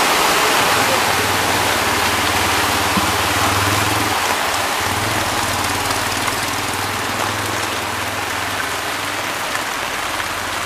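Heavy rain and the rush of floodwater as a truck's wheels plough through the flooded street. The splashing is loudest at the start and slowly fades, and a vehicle engine hums steadily underneath.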